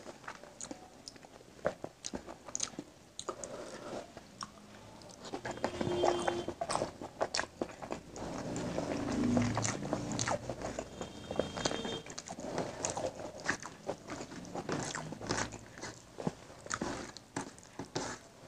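Close-miked chewing and wet mouth clicks of eating rice with egg curry by hand, mixed with the squish of fingers working rice into the curry on a steel plate. Many scattered sharp clicks throughout.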